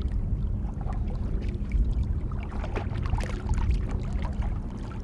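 Water splashing and lapping at the side of a boat as a musky is held by the tail at the surface to revive it, over low wind rumble on the microphone. The small splashes grow busier about halfway through.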